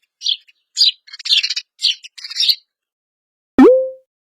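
Sparrow chirping: a quick series of short, high chirps over the first two and a half seconds. Near the end comes one short swooping tone with a sharp start, the loudest sound here.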